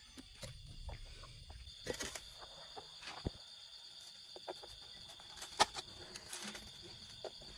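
Scattered light clicks and taps of a knife and metal pizza tray as the pizza is handled and cut, the sharpest about two, three and five and a half seconds in. A steady high-pitched drone runs underneath throughout.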